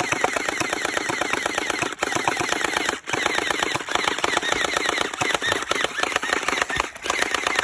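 Electric gel blaster firing on full auto: a fast, continuous rattle of shots with short breaks about two and three seconds in. It stops right at the end as the magazine runs empty.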